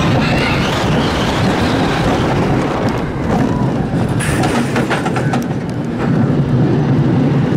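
Mack wild mouse roller coaster car running along its steel track: a steady rumble of wheels on the rails, with a few sharp clacks about halfway through.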